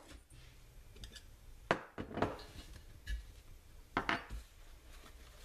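Brass stove valve parts and small metal tools clinking and knocking as they are handled and set down on a wooden workbench: a pair of sharp clicks about two seconds in and another pair about four seconds in.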